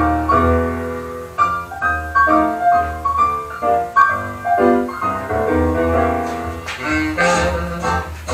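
Intro background music: piano melody over a steady bass line, with reed or brass sounds coming in near the end.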